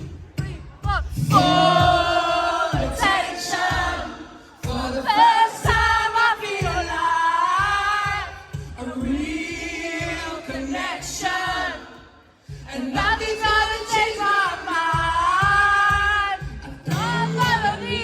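Live acoustic performance of a pop song: a singer's voice in long phrases over a strummed acoustic guitar, with the crowd singing along.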